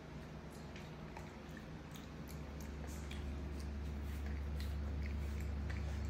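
A monkey eating from a plastic plate: scattered small clicks and smacks of chewing and of food and a spoon on the plate, over a steady low hum that grows louder about two seconds in.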